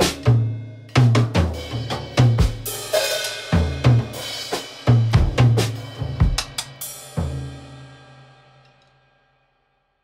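Drum kit playing a short drum break, with bass drum, snare and cymbal hits about two a second. A quick run of hits comes near the end, then a final crash about seven seconds in that rings out and fades away.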